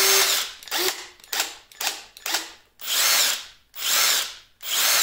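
Cobalt 24-volt brushless cordless impact driver revved in about eight short trigger pulls. Each burst winds down for a moment after release instead of stopping dead, the run-on delay of the brushless tool's electronics.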